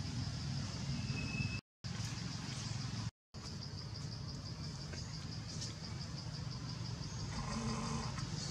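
Insects chirring steadily in a high, pulsing trill over a low rumbling background noise, with the audio cutting out briefly twice. Near the end a brief pitched call or tone sounds for about a second.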